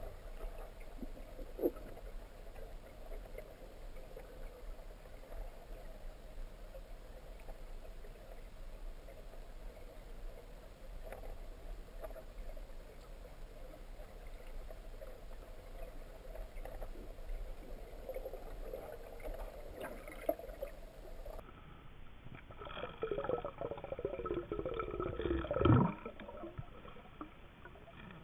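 Muffled underwater sound through an underwater camera: a steady low wash of water noise with a few small clicks. About three-quarters of the way in, after a cut, a louder swelling sound comes in with several tones sliding steeply down in pitch, loudest shortly before the end.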